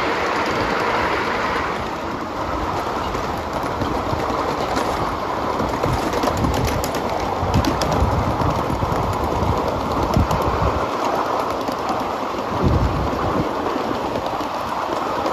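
Steady rushing noise of a ridden 7.5-inch gauge live steam train running along its track, with scattered clicks and a few low thumps from the wheels and cars.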